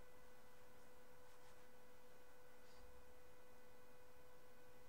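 Faint steady whine at a single held pitch, with fainter overtones above it, over low background hiss: electrical noise in the recording.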